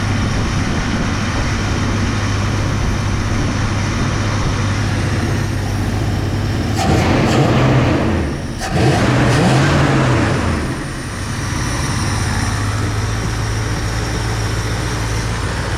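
1966 Plymouth Belvedere engine idling steadily after a tune-up, running without a miss. The engine is revved up and back down twice, about seven and nine seconds in, then settles back to idle.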